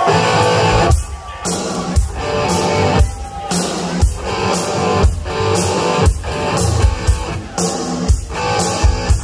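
Live rock band playing electric guitars over a drum kit, with a strong drum hit about once a second.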